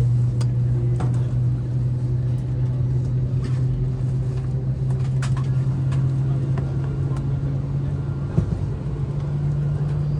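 Steady low cabin hum of an Airbus A321 on the ground before departure, with its pitch stepping up slightly about eight seconds in. A few light clicks and knocks are scattered through it.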